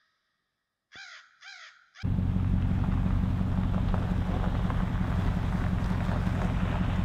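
A crow cawing twice in quick succession about a second in. Then, from about two seconds in, a steady low rumble of the pickup truck driving, with wind noise on the microphone, louder than the caws.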